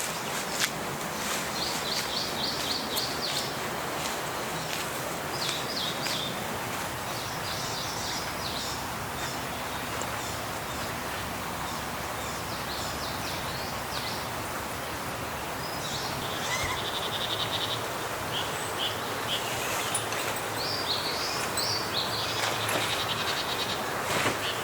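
Forest ambience: small birds singing short chirping and trilling phrases every few seconds over a steady rush of wind in the trees.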